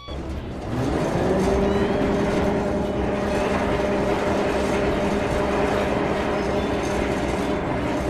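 A motor starts and comes up to speed about a second in, then runs at a steady pitch with a constant hum over a noisy rumble.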